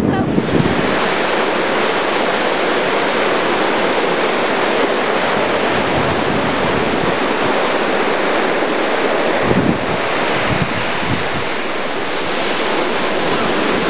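Heavy hurricane-driven surf breaking and washing in, a steady rush of noise, with wind gusting on the microphone about ten seconds in.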